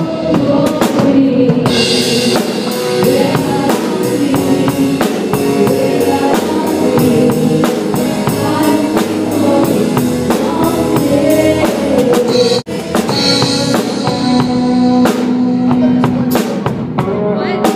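A live band plays a worship song, with a drum kit keeping a steady beat under sustained instrumental chords. The sound cuts out for an instant about two-thirds of the way through.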